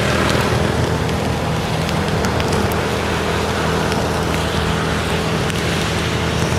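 Steady vehicle noise: a low engine hum under a wide hiss of road and wind noise, with no horn notes.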